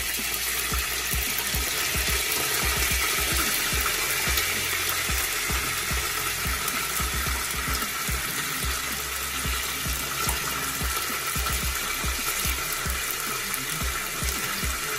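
Hot oil sizzling steadily in a frying pan as pieces of stew beef are laid in to brown.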